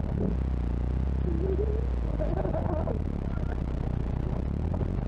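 Vehicle engine idling with a steady low drone, heard from inside the cab.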